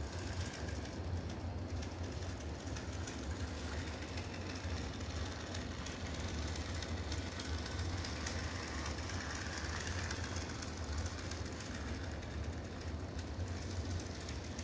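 Bachmann HO scale model diesel locomotive running light along sectional track, its small electric motor and gears giving a steady whir over a low hum. This is its first run after some 30 years boxed, before any break-in.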